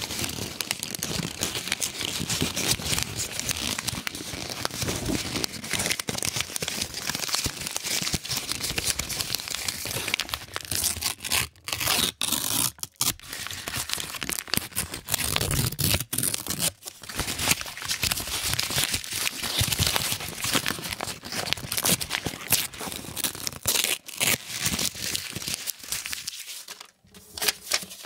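Paper 100-euro banknotes being crumpled and rustled between the hands, a dense, continuous crinkling and crackling with a few brief pauses around the middle and a short quiet moment near the end.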